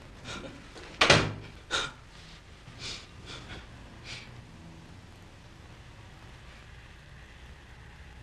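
A door shutting: a sharp knock about a second in and a second click just after as it latches. A few faint clicks and knocks follow, then only a steady faint hum.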